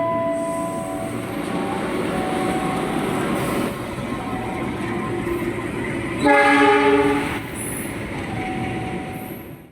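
KRL Commuterline electric commuter train running on the rails. Its horn sounds once for just over a second, about six seconds in.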